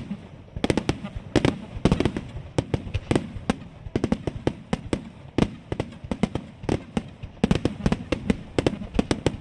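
Aerial firework shells bursting in a rapid barrage: sharp bangs and crackles several times a second, each trailing a low echoing rumble.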